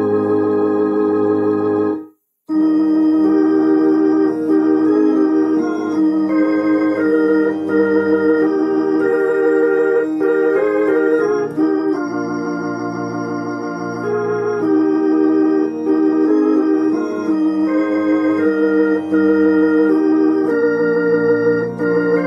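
Roland HP 704 digital piano played with an organ voice: sustained gospel hymn chords with a wavering vibrato. The sound stops dead for about half a second just after two seconds in, then the playing resumes.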